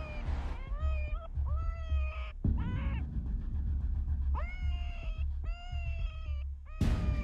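Electronic predator call playing a string of animal distress cries, about five or six of them, each half a second to a second long, rising and then holding pitch, with short gaps between. A steady low rumble lies underneath.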